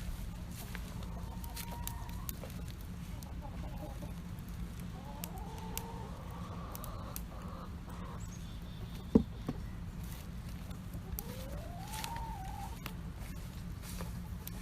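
Chickens calling in a few drawn-out notes that rise and fall, over the light crackling of a wood campfire with one sharp pop about nine seconds in.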